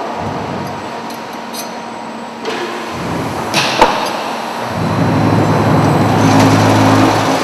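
Concrete block plant handling machinery running, with a sharp metallic clank a little before the middle. A low steady drive hum starts about two-thirds in as the gripper lowers onto the layer of fresh concrete blocks.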